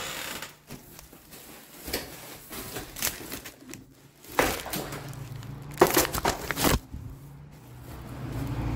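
Plastic garbage bags crinkling and rustling as they are carried, with handling knocks and a cluster of louder bumps around the middle. A low steady hum comes in about halfway through.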